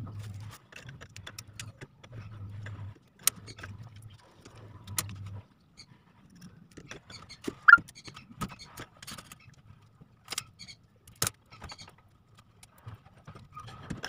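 Hands handling and snipping electrical wire with cutters: scattered clicks, snips and rustles as the leads of a replacement washing-machine capacitor are cut and twisted together. A low hum comes and goes in the first few seconds, and a short sharp squeak sounds about halfway.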